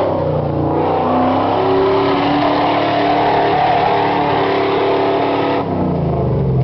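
V8 off-road four-wheel-drive engine revving hard and held at high revs, then the revs drop away about five and a half seconds in.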